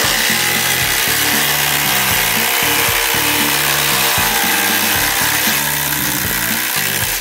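Two RIDGID brushless subcompact impact drivers hammering at once as they drive quarter-inch lag screws into a wooden beam. The sound is loud and steady and ends abruptly. Near the end one driver has finished and only the other is still running.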